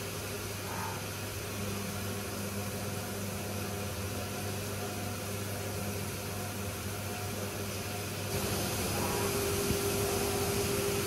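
Haas VF-4SS CNC vertical mill machining soft jaws under flood coolant: a steady spindle hum and cutting noise with the hiss of coolant spray. About eight seconds in it gets louder and a higher steady tone joins.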